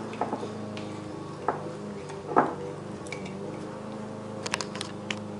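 A spoon stirring and scraping a thick paste of shortening, honey and boric acid in a glass jar: soft squishing with a few separate clinks and scrapes against the glass, the loudest about two and a half seconds in. A steady low hum runs underneath.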